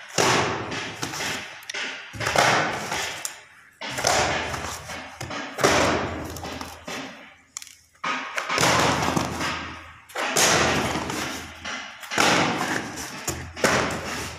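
Cardboard boxes of wire coils being lifted out of a cardboard carton and set down: a run of thumps and cardboard scrapes, one about every two seconds, each starting sharply and fading.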